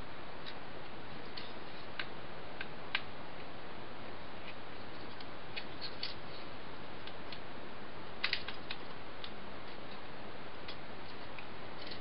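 Small, irregular plastic clicks and taps from a Transformers action figure's parts being moved and snapped into place during transformation, with a quick cluster of clicks about eight seconds in, over a steady hiss.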